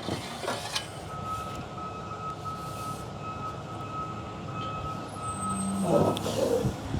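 Front-discharge concrete mixer truck's reversing alarm beeping steadily, about two beeps a second, over the truck's engine running. A louder sound swells briefly near the end as the beeping stops.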